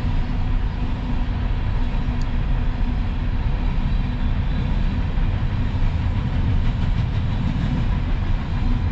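A long train rolling past, a steady loud rumble of its cars and wheels on the rails.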